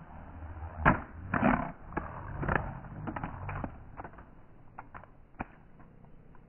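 Small carbon-frame FPV racing quadcopter crashing into the ground: a sharp impact about a second in, then more knocks and scraping as it tumbles over a low rumble that dies away after about three and a half seconds, followed by a few scattered small clicks.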